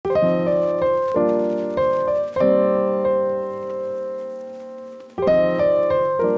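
Background piano music: chords struck every half second or so, then one chord left to ring and fade for nearly three seconds before the playing picks up again.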